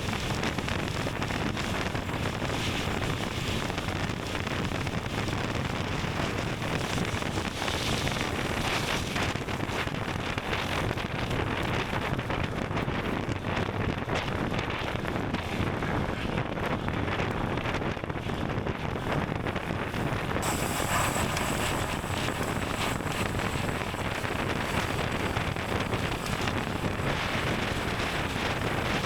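Wind rushing over the microphone and a road bicycle's tyre noise while riding along steadily. About two-thirds of the way through, a brighter high hiss with a faint thin whine joins in and stays.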